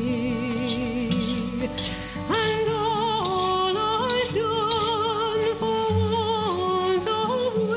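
Background music with a melody of long, wavering held notes, over rice frying in a wok: a steady sizzle with the spatula scraping and turning the rice now and then.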